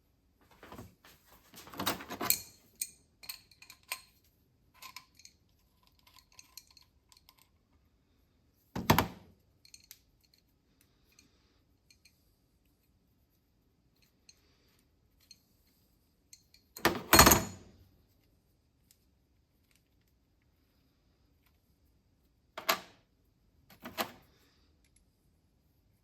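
Metal hand tools being handled while a thread chaser is worked through a brass spark plug insert: a run of small metallic clicks and clinks, then four separate louder knocks, spaced out over the rest of the time.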